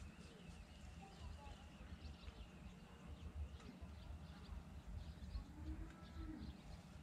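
Quiet outdoor ambience: faint, scattered bird calls over a low, steady rumble.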